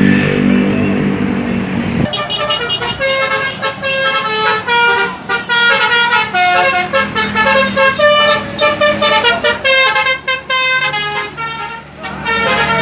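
A bus's telolet horn, a multi-tone musical air horn, playing a quick run of short notes at changing pitches, like a tune. Before it, for about the first two seconds, the bus engine runs with a rush of noise; the horn notes start about two seconds in and go on to the end.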